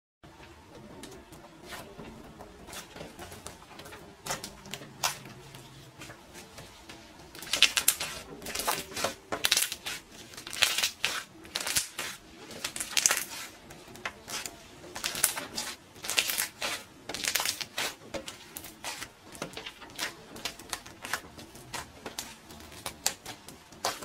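Homemade slime with foam blocks mixed in being squeezed and kneaded by hand, giving irregular crackling bubble pops. The pops are faint at first and grow louder and more frequent about seven seconds in.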